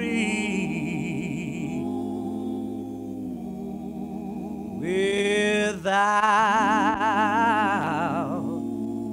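Gospel song: voices hold long notes and chords between sung lines, then after a brief break a singer holds a long note with wide vibrato that fades away.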